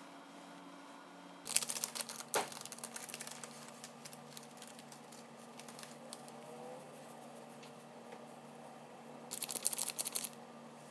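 Plastic bag of bonito flakes crinkling as it is handled and flakes are pulled out: a longer burst of crackly rustling about a second and a half in and a shorter one near the end.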